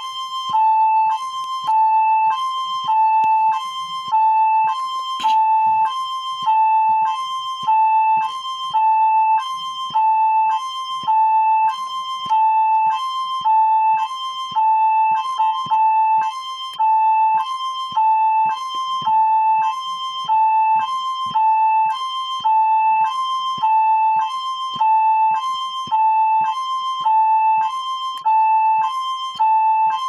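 Electronic hi-lo siren tone, steadily switching back and forth between a lower and a higher pitch, each held for under half a second.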